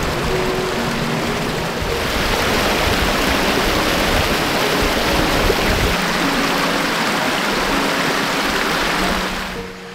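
Creek water rushing and splashing over rocks and small cascades, a steady noise that grows louder about two seconds in and drops away just before the end.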